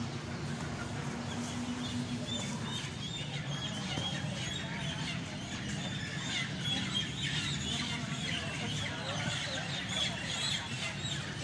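A truckload of caged Rhode Island Red chickens calling together in a dense chorus of short, overlapping calls. The chorus grows busier a few seconds in.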